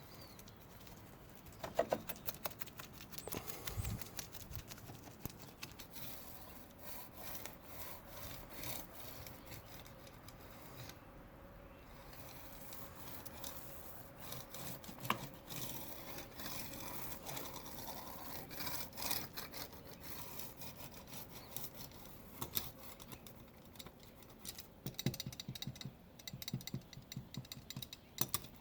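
Irregular rubbing and scraping as wet fiberglass cloth is worked down onto the boat's transom by hand and tool, in many short uneven strokes.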